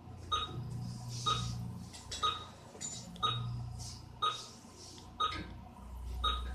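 Regular ticking about once a second, each tick a short click with a brief ringing ping, over a faint low hum.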